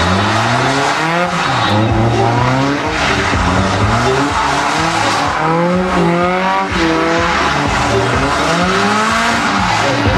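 Westfield sports car's engine revving hard, its pitch rising and falling over and over as it is driven around a tight cone course, with tyres squealing as the car slides through the turns.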